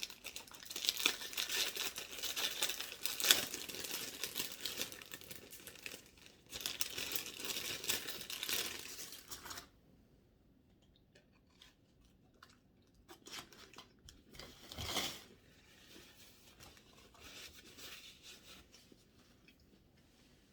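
A cookie wrapper being torn open and crinkled for about ten seconds, with a short pause partway through. It is then mostly quiet, with scattered faint clicks and one brief rustle about fifteen seconds in.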